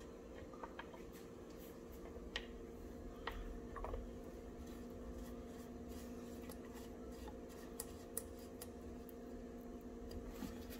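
Faint small clicks and scraping as a drain plug with a new seal is screwed by hand into a plastic pump housing, over a steady low hum.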